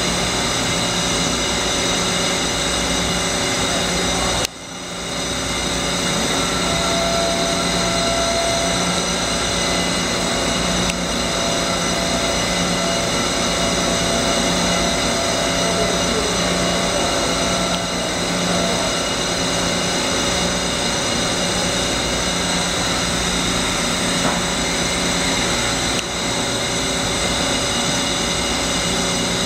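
Hyundai-Kia SKT21LMS CNC turning centre running, giving a steady machine whir made of several fixed tones, with a sudden brief drop in level about four and a half seconds in. A thin steady whine joins about seven seconds in and fades out a little before twenty seconds.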